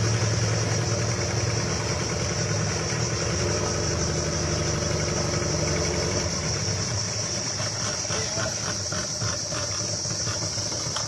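A small boat's outboard motor running steadily at low speed, with a steady high-pitched insect buzz from the riverbank over it.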